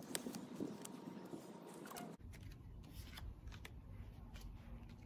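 Playing cards being handled, picked up and passed along a table: faint scattered snaps and rustles. A low steady rumble comes in abruptly about two seconds in.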